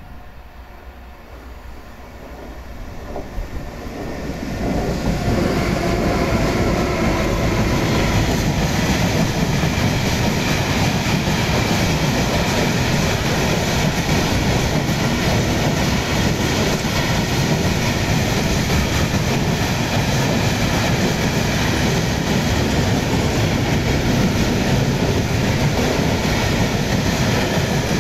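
Freight train hauled by two Siemens Vectron (Sr3) electric locomotives approaching, growing louder over the first five seconds, then the steady running noise of its long rake of Shmmns-tw steel-coil wagons rolling past close by.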